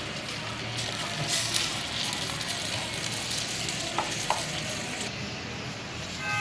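Steady sizzling hiss as a wooden spoon adds hot, dark caramel to quesillos in plastic cups, with two light clicks about four seconds in.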